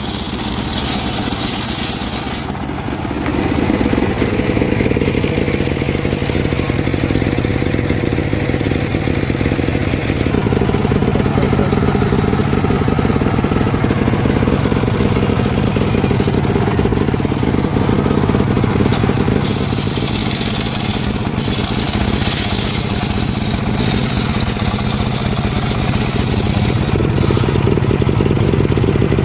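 An engine-driven wood saw running steadily. Twice a high-pitched cutting noise rises over it: briefly at the start, then for several seconds about two-thirds of the way in, as the blade cuts through wood.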